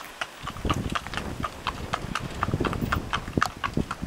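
A New Forest pony's hooves clip-clopping on a tarmac lane at a trot as it pulls a four-wheeled driving carriage, about three to four hoofbeats a second. A low rumble joins about half a second in.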